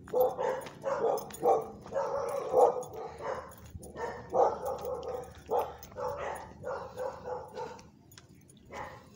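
A dog barking over and over, about two barks a second, falling off near the end.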